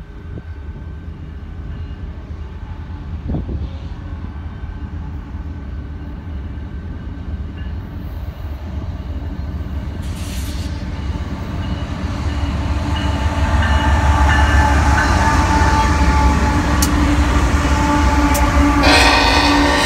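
A freight train's diesel locomotives approach and pass close by: a low engine rumble that grows louder over the first dozen seconds and stays loud as the units go by. A shrill high-pitched sound joins suddenly near the end.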